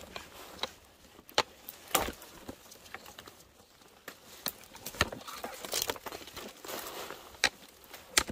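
Irregular footsteps with sharp crunches and snaps, spaced unevenly, as of someone walking over dry ground and twigs.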